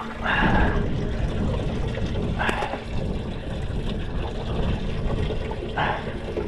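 Wind buffeting the microphone over water lapping around a small boat, with three short splashes.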